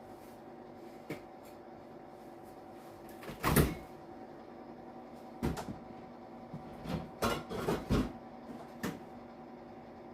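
A scattering of short knocks and clunks from something being handled, the loudest about three and a half seconds in and a quick run of them between about seven and eight seconds, over a steady faint hum.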